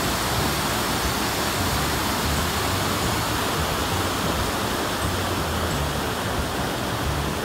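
Steady rush of water pouring over a low stepped weir into a pond, an even, unbroken noise.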